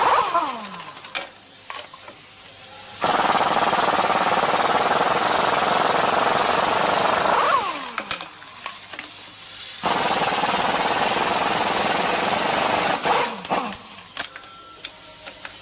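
Ingersoll Rand 2235TiMAX 1/2-inch air impact wrench run in bursts of about three to four seconds, with pauses of about two seconds between them. Each time the trigger is let go, the air motor winds down in a falling whine.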